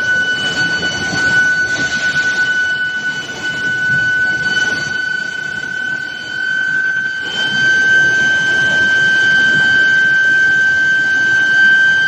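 Steel billet induction heating furnace running: a steady high-pitched whine with overtones, edging slightly higher in pitch, over a rough rumble of machinery noise.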